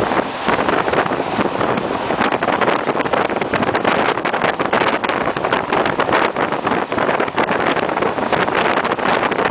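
Passenger train running at speed, heard from on board: a steady loud rush of wheels and air, full of small rattles and clicks, with wind buffeting the microphone.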